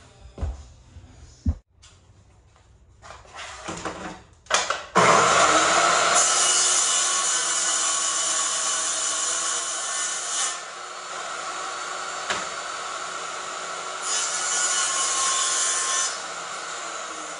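Portable table saw cutting a laminate floor plank. After a few knocks from handling the plank, the saw starts suddenly about five seconds in and runs steadily. It gets harsher and louder twice as the blade cuts through the plank, and grows quieter near the end.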